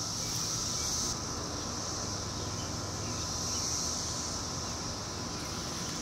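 Chorus of periodical cicadas: a steady high-pitched buzz with no breaks, over a low steady rumble.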